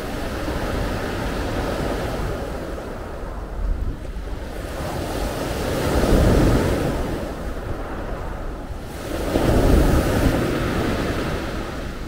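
Mediterranean surf breaking and washing up a pebble beach, with two bigger waves surging in about six and ten seconds in. Wind buffets the microphone with a low rumble throughout.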